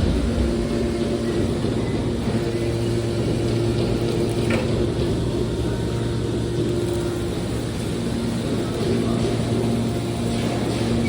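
Hydraulic metal baler's power unit running with a steady mechanical hum and a noisy wash over it.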